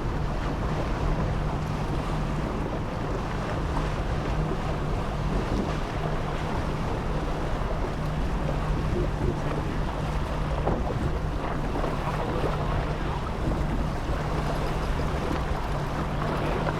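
Wind buffeting the microphone over water noise, with a steady low hum from a boat's engine running throughout.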